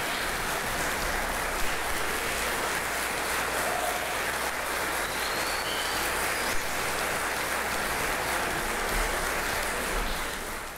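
Concert audience applauding steadily, a dense even clapping that starts to fade right at the end.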